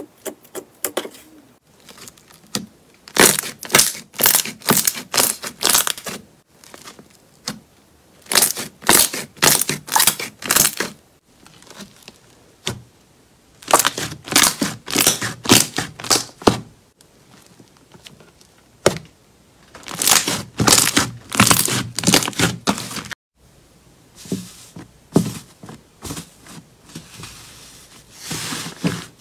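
Slime being squished and pressed by fingers and hands: runs of rapid wet crackling pops, coming in several spells of a few seconds with quieter pauses between.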